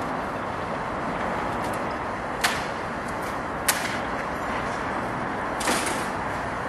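Steady outdoor background rumble, broken by two sharp knocks about two and a half and three and a half seconds in and a short, louder rasp near six seconds.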